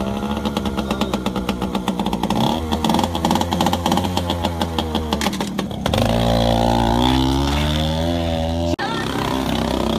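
Yamaha PW80 dirt bike's small two-stroke single-cylinder engine idling with a rapid, even popping note. About six seconds in, a small motorbike engine revs up, its note climbing steadily in pitch as it accelerates.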